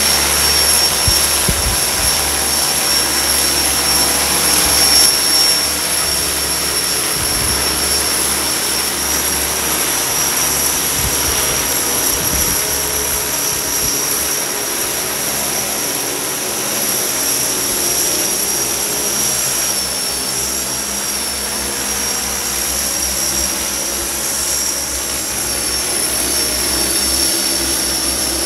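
Large multirotor crop-spraying drone flying overhead, its propellers giving a loud, steady buzz. A constant high-pitched whine sits over it, and low wind buffets hit the microphone now and then.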